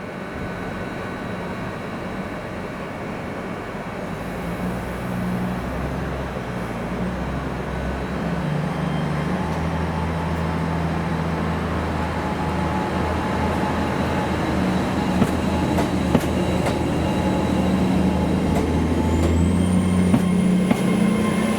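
Train arriving at a station platform, its low drone growing louder. Wheel clicks and knocks come in the last few seconds, and a high wheel squeal rises near the end.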